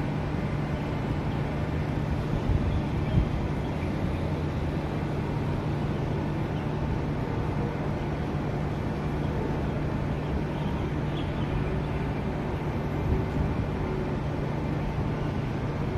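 Steady outdoor background noise with a constant low hum around a stationary electric metro train standing at an elevated station, with no clear start of motion.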